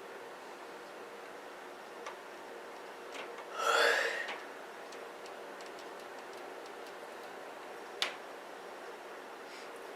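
A woman yawning: one short, voiced breath out lasting under a second, about three and a half seconds in. Two faint clicks and a steady low hum and hiss fill the rest.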